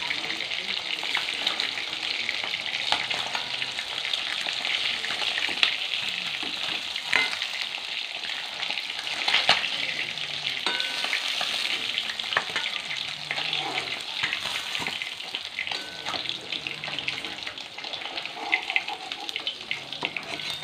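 Pieces of aar catfish frying in hot oil in an aluminium wok, a steady sizzle. Sharp clinks and scrapes of a steel spatula against the wok come through it as the pieces are turned and lifted out.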